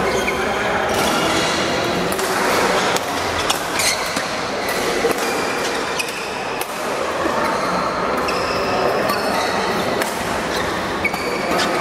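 Badminton doubles rally: a string of sharp racket-on-shuttlecock hits, with sneakers squeaking on the court floor in between.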